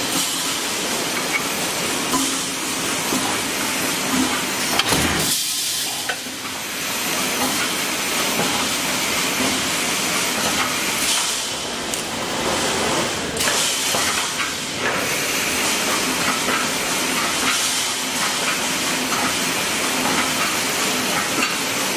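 Automatic wire mesh panel welding machine running, making a steady hissing, sizzling noise as it welds the mesh, with a few brief louder bursts of hiss.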